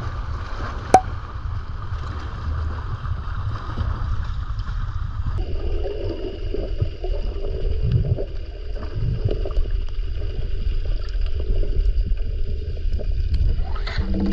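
Seawater sloshing and gurgling around an action camera as a diver wades in off a rocky jetty, with a sharp click about a second in; from about five seconds in it turns to the muffled low rumble of the camera underwater as the diver moves along the bottom.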